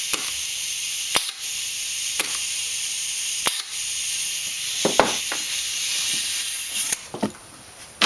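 Steady hiss of compressed air leaking from a worn air-hose coupler, with a sharp click every second or so as the solenoid valve switches and the screen-door-closer pneumatic cylinder kicks out and back. The hiss cuts off about seven seconds in.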